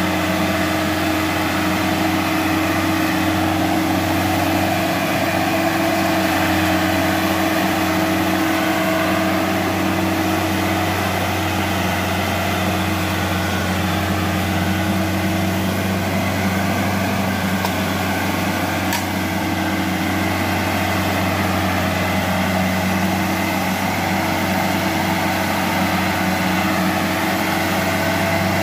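Kubota L1-285 tractor's diesel engine running steadily at an even speed while hauling a load of timber.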